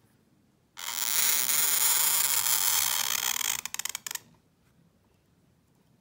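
A calligraphy pen scratching across paper in one long stroke of about three seconds, breaking into a rapid juddering scrape just before it lifts off.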